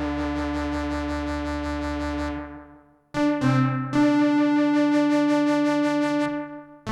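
Arturia MicroFreak hybrid synthesizer playing held chords through a Behringer VD-400 analog delay pedal. One chord dies away about two and a half seconds in. New notes come in just after three seconds and again about a second later, then fade near the end.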